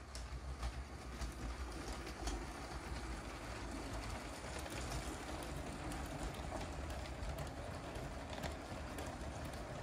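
LEGO Union Pacific train rolling steadily along plastic LEGO track, a low rumble with irregular light clicks as its wheels cross the rail joints.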